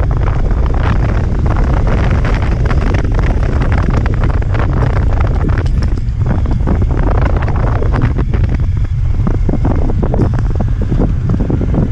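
Loud wind buffeting the microphone of a moving motorcycle, over the steady low rumble of the bike riding a rough road.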